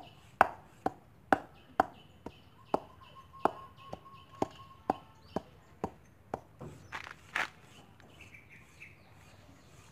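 Hand vegetable peeler drawn along a raw carrot, a crisp scrape with each stroke about twice a second, then a brief flurry of louder strokes near the middle and lighter ones after.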